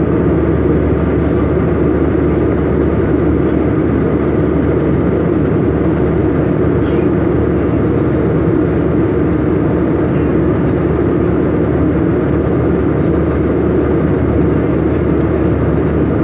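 Steady engine and air noise of an airliner in flight, heard from inside the passenger cabin: an even, unbroken low drone.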